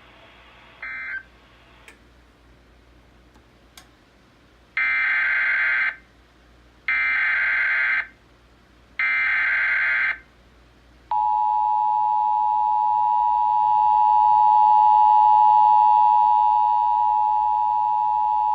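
Emergency Alert System header: three bursts of SAME digital data tones, each about a second long and a second apart, then the two-tone attention signal, a steady dual-tone alarm held for about eight seconds.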